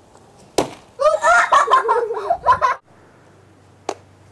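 A thrown, paint-dipped fluffy ball hits the wooden shed once with a sharp smack about half a second in. Children's voices follow for a couple of seconds, and there is a short click near the end.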